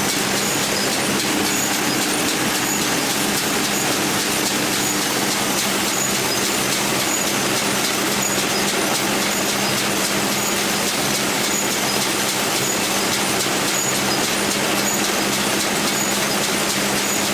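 Agricultural machine running steadily: an even mechanical noise with a constant low tone and no change in speed.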